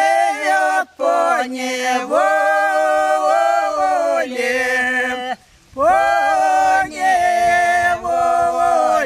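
Elderly women singing a Russian lyrical folk song a cappella in long, drawn-out held notes with slow glides between pitches. The singing breaks off briefly about a second in, and for a longer breath about five and a half seconds in.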